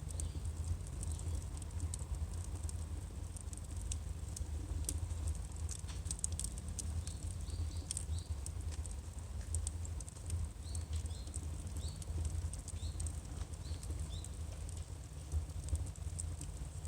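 Firewood burning, with irregular sharp crackles and pops over a steady low rumble. A run of short, high, falling chirps comes through in the middle.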